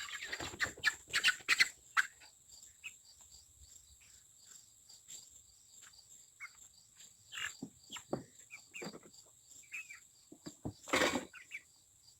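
Young broiler chickens (meat birds) peeping in short chirps, with scuffling and handling noise in the first two seconds and again in a loud burst about eleven seconds in, over a steady high trill of insects.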